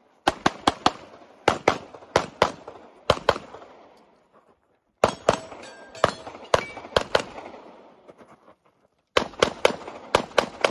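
Handgun shots fired in quick succession, mostly as double taps about a fifth of a second apart, in three strings with short pauses between, each shot ringing out briefly.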